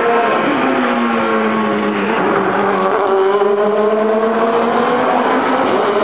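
Race car engine running at speed on the circuit; its pitch drops over the first second or so, then holds fairly steady.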